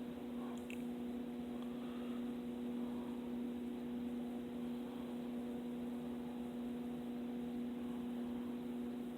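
A steady low hum with a few fainter overtones above it, like an electrical or appliance hum, with faint small handling sounds about a second in.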